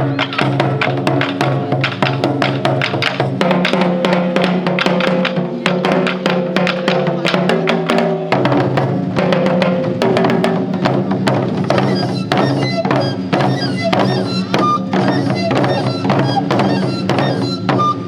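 Japanese taiko drum ensemble playing a fast, dense pattern of drum strikes over sustained low accompanying tones that shift pitch twice.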